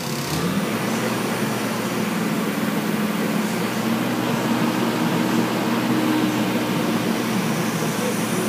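An engine running steadily, its pitch rising a moment in and then holding.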